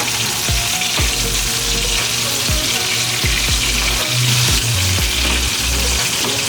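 Chicken breast frying in oil in a hot pan, a steady, dense sizzle, with background music carrying a bass beat underneath.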